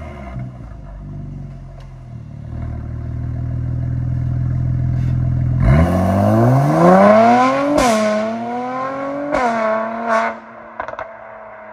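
Mercedes-AMG C43's twin-turbo V6 through a decatted Armytrix valvetronic exhaust, pulling away at low revs, then accelerating hard with the pitch climbing through two upshifts. It crackles as the throttle lifts near the end and fades as the car moves off.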